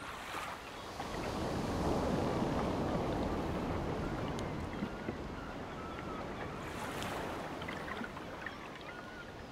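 Ocean waves breaking and washing onto a shore, a steady rush of surf that swells up about two seconds in and again near seven seconds.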